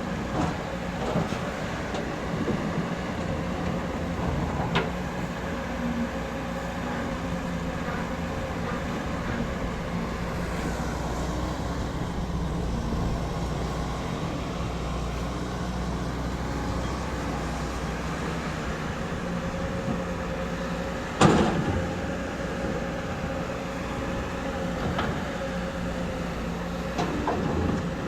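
Excavator's diesel engine running steadily under a constant tone, with a few knocks and one loud bang about three-quarters of the way through.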